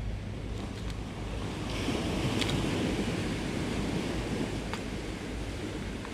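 Sea waves washing over a rocky shore, one wave swelling up about two seconds in and fading away, over a steady low wind rumble on the microphone. A couple of light clicks from a clear plastic lure box being handled.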